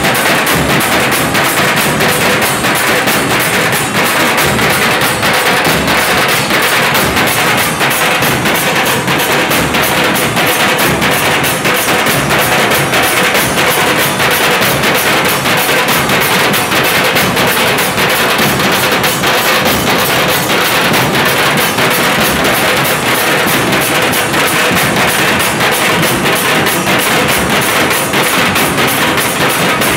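Loud live drumming on a group of large drums, beaten hard in a fast, steady, unbroken rhythm.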